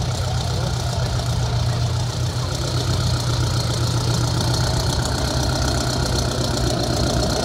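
Vintage John Deere tractors driving slowly past, their engines running steadily at low revs. The John Deere 5020's six-cylinder diesel passes close and grows a little louder about halfway through.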